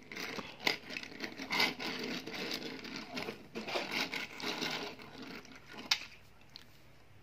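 Metal die-cast toy cars being handled and moved about on a plastic tabletop: irregular rubbing and scraping with small clicks, and one sharp click about six seconds in.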